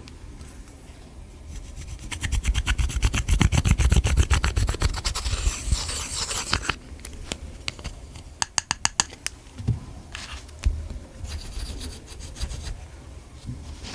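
Slime being worked by hand with lipstick mixed in: a fast run of sticky clicks and pops for a few seconds, then scattered clicks and rubbing.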